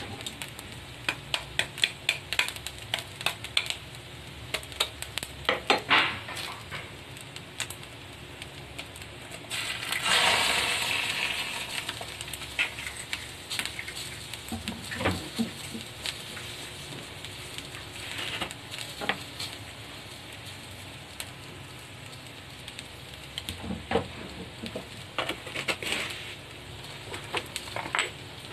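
A run of sharp taps over the first six seconds as an egg is cracked, then about ten seconds in the raw egg hits the hot cast-iron sizzling plate and sizzles, the hiss fading over a couple of seconds. Scattered clicks and brief crackles follow.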